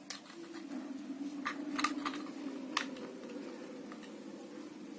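Scattered small plastic clicks and taps as batteries are fitted into a toy car's battery compartment, over a steady low hum.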